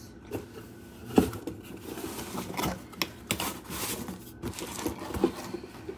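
Objects being handled and set down on a tiled counter: scattered clicks and knocks, the sharpest about a second in, with a brief rustle around three to four seconds in.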